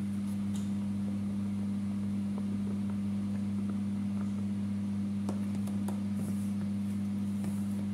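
Steady low electrical hum from a running appliance, even and unchanging, with a few faint ticks and scrapes of a spatula against a steel bowl.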